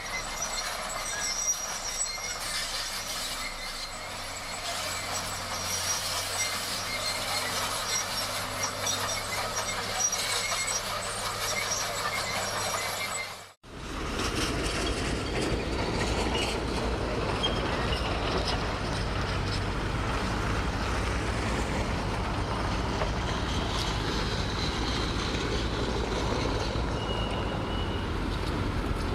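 Heavy earthmoving machinery at work: a diesel engine runs steadily with a thin, high squeal like steel tracks or undercarriage. After a sudden cut about halfway through, a louder, deeper engine rumble takes over.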